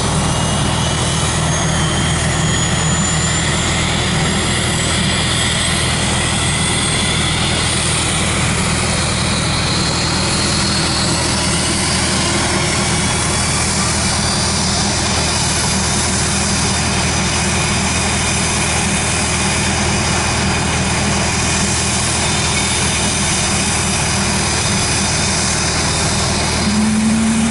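Twin rear-mounted turbofan engines of a small business jet running at taxi power: a steady jet whine over a low hum, its high tones slowly drifting in pitch.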